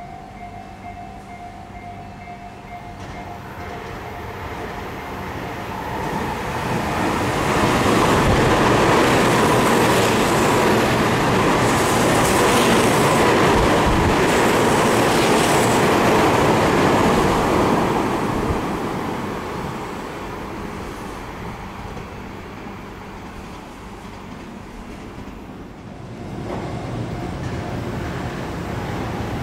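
Tobu 50000-series rapid express train passing through a station at speed without stopping. Its rumble builds over a few seconds, stays loud for about ten seconds as the cars go by, then fades away. Near the end, the sound of another train approaching starts.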